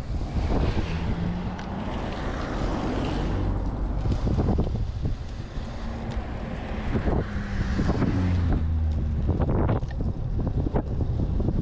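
Wind buffeting an action camera's microphone during a fast road-bike descent: a loud, steady, low rushing, with a few short knocks.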